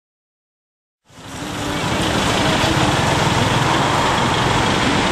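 Silence, then about a second in street traffic noise fades in and holds steady: engines running and road noise.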